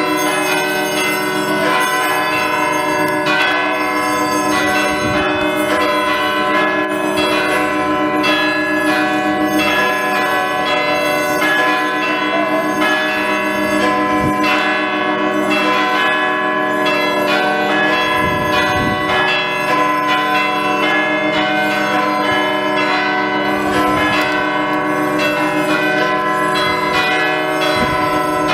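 Church bells pealing, many bells struck in quick succession with their tones ringing on and overlapping.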